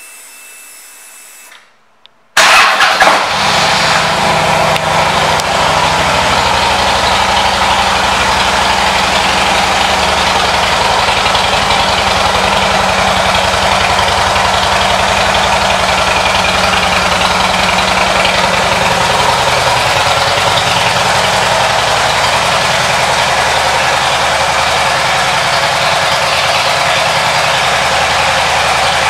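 A 2010 Harley-Davidson Road King's Twin Cam 96 V-twin, fitted with a Screaming Eagle exhaust, starts about two seconds in and then idles steadily.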